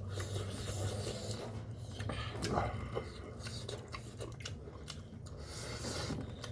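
Close-up chewing and biting sounds of someone eating, with small crunches and rubbing noises over a steady low hum.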